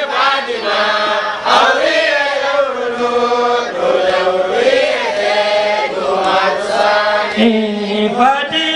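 Group of young men chanting an Islamic devotional song in praise of Fatima Zahra and the light of Muhammad (nur Muhammad), one voice leading on a microphone. The singing runs on without a break, its melody rising and falling.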